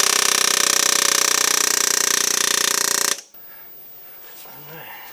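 Impact power tool hammering at a fast, steady rate, cutting off abruptly about three seconds in. It is being used to free the pistons of a seized engine.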